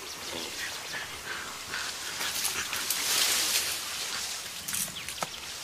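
Mountain gorilla sounds, with a louder noisy rustle swelling about halfway through.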